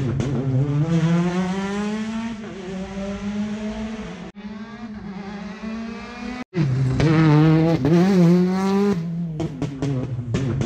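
Rally car engines at full throttle on a gravel special stage: the engine note climbs, drops at each gear change and climbs again, with quick up-and-down revving, in several short cuts. A run of sharp cracks comes near the end.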